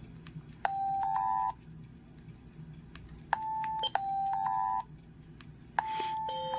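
LG CG225 mobile phone playing a short electronic ringtone through its small speaker: a quick pattern of stepped beeping tones, heard twice about two and a half seconds apart. A different ringtone begins near the end.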